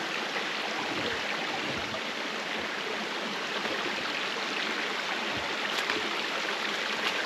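Shallow rocky mountain stream running over stones: a steady rush of water.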